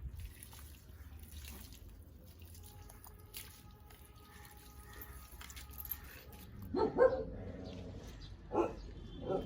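A dog barking a few short times in the second half, over quiet background noise.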